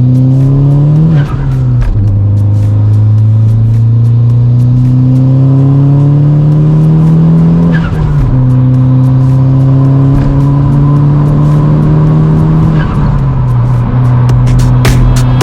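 A Chevrolet HHR SS's turbocharged 2.0-litre Ecotec four-cylinder engine pulling up through the gears, its pitch climbing slowly in each gear. The pitch drops at three gear changes: about a second in, about halfway, and a couple of seconds before the end.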